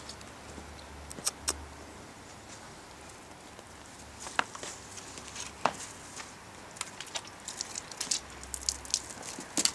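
Footsteps crunching on a thin layer of snow over grass: irregular crisp crunches, a few at first and coming thicker from about four seconds in.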